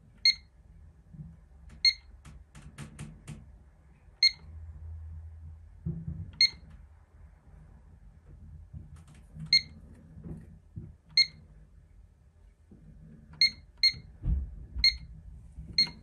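Pyronix alarm keypad giving a short, high beep at each key press: about ten beeps at uneven intervals, with a quick run of clicks about three seconds in.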